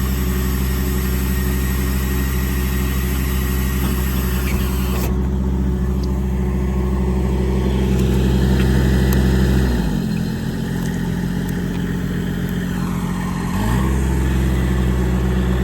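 Engine running steadily. About ten seconds in its speed drops, then it rises back about three and a half seconds later.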